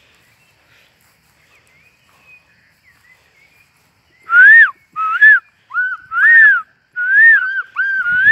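A person whistling a string of short, loud notes, each rising then falling in pitch, about seven in all, starting about four seconds in. Faint chirps come before it.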